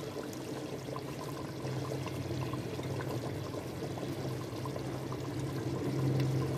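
Curry bubbling in a clay cooking pot: a steady simmer full of small pops. The pot holds its heat, so the curry keeps boiling with the stove turned off.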